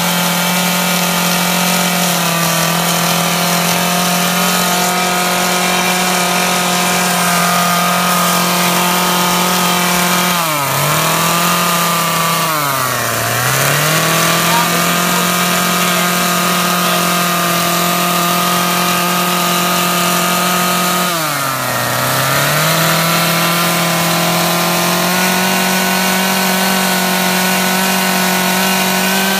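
Two-stroke carving chainsaw running at high revs, cutting into an ash trunk. Its engine note drops briefly and climbs back three times, about a third of the way in, again soon after, and about two-thirds through, as the saw is eased off and loaded again.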